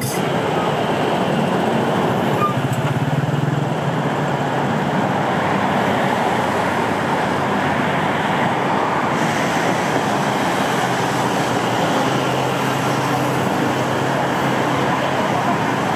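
Steady vehicle noise: a continuous rumble and hiss of traffic or a moving vehicle, with a low hum that comes and goes.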